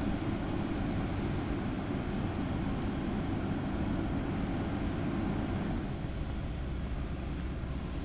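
Caterpillar excavator's diesel engine running with a steady low drone.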